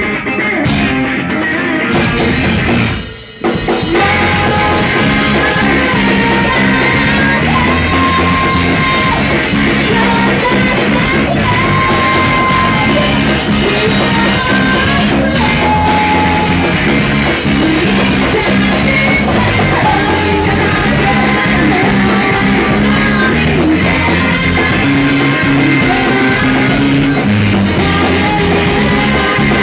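Live math rock band of two electric guitars, electric bass and drum kit. The first few seconds are sharp stop-start hits with short breaks between them, then the full band plays continuously, with a woman singing.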